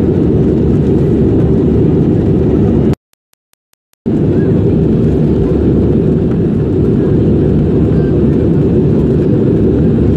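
Steady low rumble of airliner cabin noise in flight, heard from a window seat. It drops out completely for about a second about three seconds in, with a few faint ticks in the gap, then returns unchanged.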